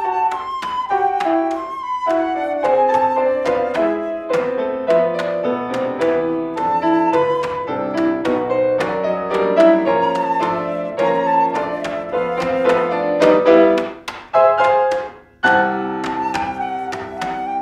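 Piano and flute playing a chamber piece, a busy passage of many short notes, with a brief break near the end before the playing resumes.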